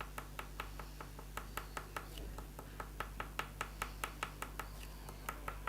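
Sap green oil pastel stick making quick short strokes on paper: a steady run of light ticks, about four or five a second.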